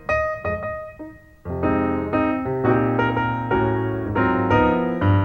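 Piano music: single melody notes at first, then fuller chords over a bass line from about a second and a half in.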